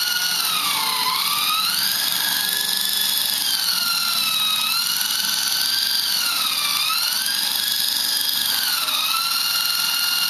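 Esky Lama V3 coaxial micro RC helicopter's electric motors and rotors whining steadily, the pitch dipping and rising again four times as the motor speed changes.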